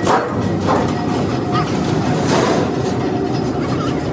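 Sheet-metal shearing machine running with a steady mechanical clatter and rumble, with several sharp metallic clanks as a large steel sheet is cut and handled in it.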